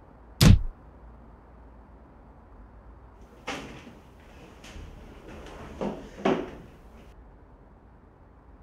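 A sharp thump about half a second in, then a newspaper rustling and crinkling for a few seconds as it is handled, with several louder crackles.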